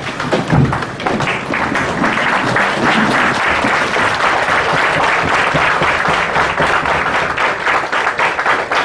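Audience giving a standing ovation: many people clapping at a steady level.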